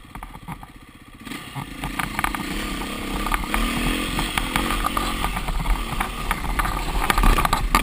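KTM enduro dirt bike engine, heard close from a helmet camera. It runs quietly for about a second, then revs up and pulls hard over rough trail, with its pitch rising a few seconds in. Short knocks and scrapes from scrub and stones against the bike come through it.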